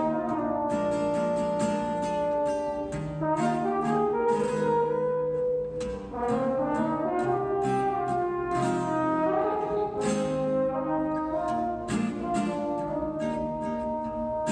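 French horn playing a slow melody of held notes over acoustic guitar strumming chords.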